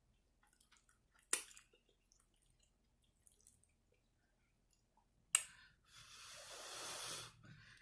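Wet mouth clicks and lip smacks of a person chewing fried chicken, with two sharper smacks, then a long breath through the nose growing louder about six seconds in.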